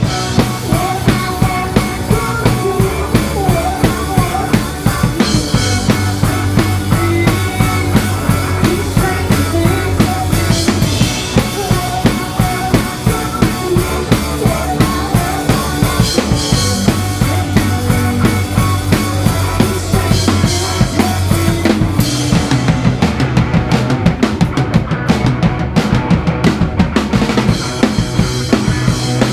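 Live rock band playing: a drum kit keeps a steady beat of kick and snare hits over sustained bass notes.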